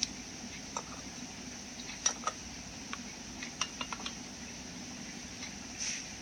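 Scattered light clicks and taps, about ten of them at uneven intervals, over a steady faint hum.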